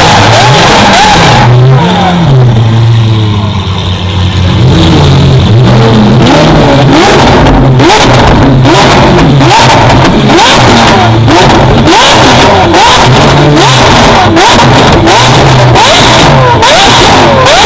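Lamborghini supercar engine revving hard and repeatedly, very loud and distorted. It eases off briefly about two seconds in, then revs again, with many sharp cracks throughout.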